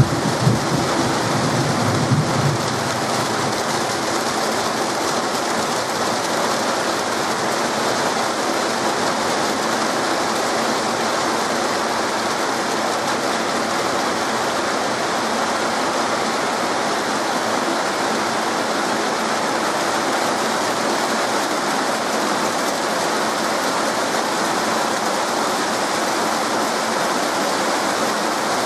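Heavy rain pouring steadily. The tail of a thunder rumble dies away in the first two or three seconds.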